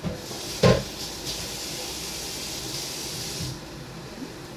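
A sharp knock, then a steady hiss lasting about three seconds that cuts off suddenly.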